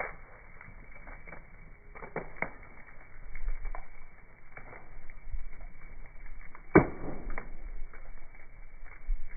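Bonfire crackling: scattered small snaps from burning wood, a few sharper cracks about two seconds in, and one loud pop near the seven-second mark.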